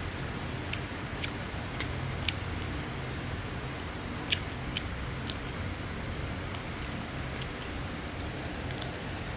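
A metal spoon stirring fried rice in a nonstick frying pan, with scattered sharp clicks as it knocks and scrapes against the pan, over a steady low hum.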